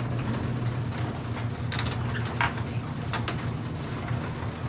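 An engine running steadily at idle, with a few short crunches or clicks over it.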